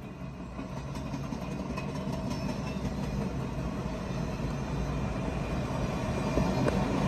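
Union Pacific excursion train's passenger cars rolling past on the track, a steady rumble of wheels on rail that grows gradually louder, heard from inside a car.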